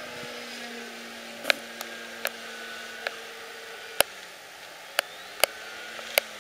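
Electric motor and propeller of a HobbyKing Yak 54 RC plane droning steadily in flight, with a string of about eight sharp, irregularly spaced clicks; the fliers wonder whether that noise is the prop.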